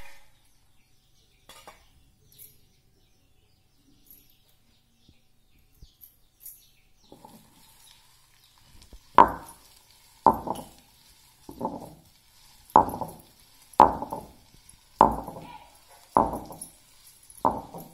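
Kitchen utensils knocking together in a steady rhythm: eight sharp strikes a little over a second apart, each with a short metallic ring, starting about halfway through. Before that there are only a few faint clicks.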